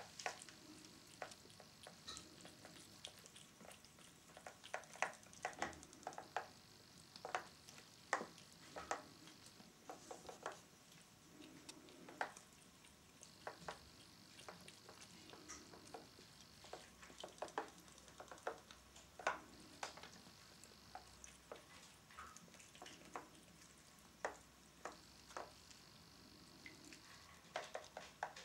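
Faint, irregular small splashes and clicks of water in a plastic tub, stirred by a battery-powered Robo Fish toy swimming at the surface while cats play at it.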